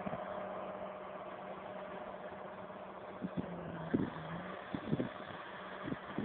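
Diesel tractor engine running steadily under load while pulling a land leveler across the field, its note dipping lower for about a second midway. Several short low thumps of wind buffeting the microphone in the second half.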